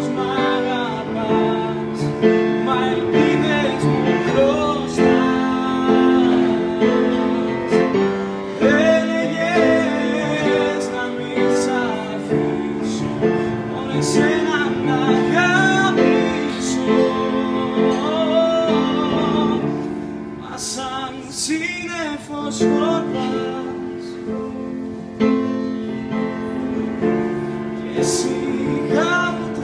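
A man singing with live grand piano accompaniment, held piano chords under the voice. About twenty seconds in the singing thins out for a few seconds and the piano carries on mostly alone.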